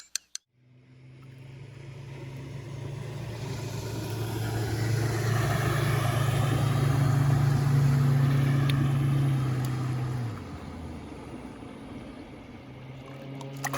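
Boat outboard motor running with a steady hum that grows louder over several seconds, drops about ten seconds in, then picks up again near the end.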